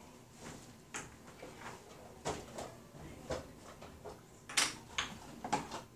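Wooden puzzle shapes clacking and tapping against a wooden form board on a tabletop: scattered light knocks, with two louder ones near the end.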